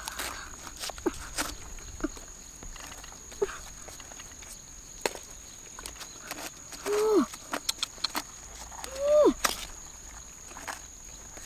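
Wooden stick scraping and jabbing in wet mud and gravel under a boulder, giving scattered clicks and scrapes. Two short, falling, voice-like calls about seven and nine seconds in are the loudest sounds, over a steady high whine.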